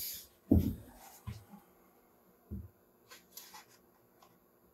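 Wooden board being handled and set down: a solid low knock about half a second in, then a couple of softer knocks and a few light taps and scuffs.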